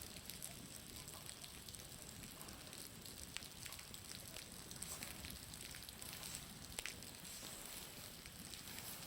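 Irregular crackling ticks over a steady hiss: an outdoor bonfire together with meltwater dripping and splashing off a roof, the dripping sounding much like the fire's crackle.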